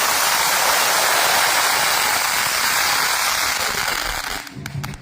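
Loud, steady hissing noise with no distinct strikes or tones, cutting off about four and a half seconds in.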